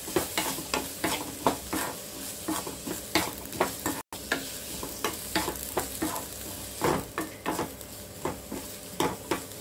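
Chopped onions sizzling in hot oil in a metal kadai while a wooden spatula stirs them, with frequent irregular scrapes and knocks of the spatula against the pan. The onions are being sautéed until soft and light golden. The sound cuts out for an instant about four seconds in.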